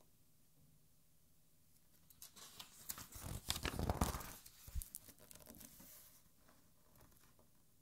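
A page of a hardbound art album being turned by hand, a crisp paper rustle that builds about two seconds in and is loudest around four seconds. A short low thump follows as the page settles flat.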